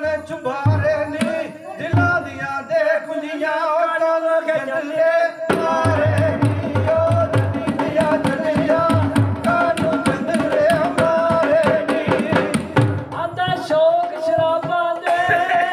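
A man singing a folk song into a microphone in long, held, wavering lines, accompanied by hand drumming on an upturned aluminium cooking pot used as a drum. The singing grows fuller and the drumming busier from about five seconds in.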